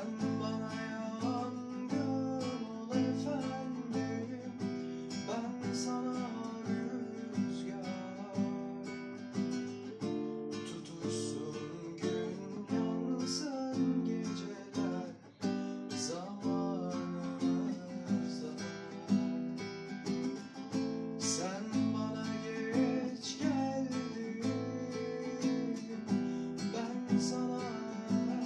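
A young man singing a song to strummed acoustic guitar accompaniment.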